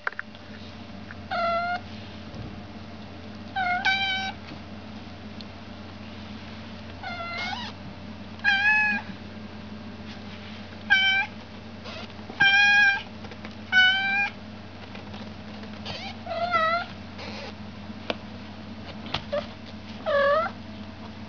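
American Shorthair kittens meowing: about a dozen short, high mews, each under a second, spaced irregularly a second or few apart, over a faint steady hum.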